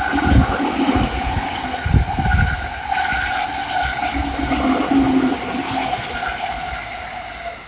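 E217-series electric commuter train running past on the line below, a steady rushing roar with a hum of several held tones and low rumbling surges now and then, fading gradually near the end as the train draws away.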